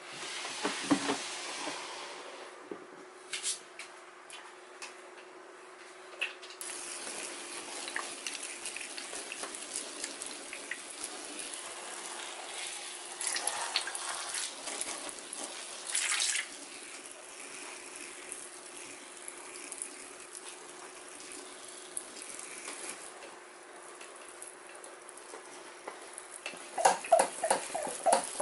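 A plastic tub is slid out of a shelf, then water is sprayed again and again over bark-chip substrate, a hissing spray with sharper spurts in the middle. Near the end come a quick series of hard plastic knocks.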